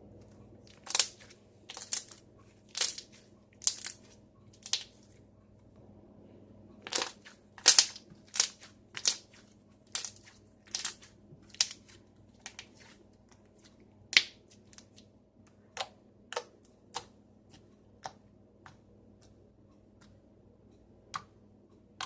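Soft lotion slime being squeezed and stretched by hand, giving a series of sharp popping clicks as trapped air bursts. The pops come about once a second, bunch closer together in the middle and thin out toward the end.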